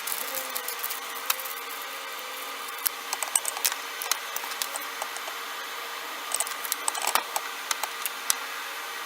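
Scattered light clicks and taps, like small objects being handled, over a steady hum.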